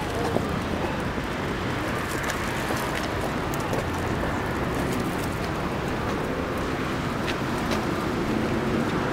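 Steady outdoor city background noise: an even low rumble with a few faint high ticks.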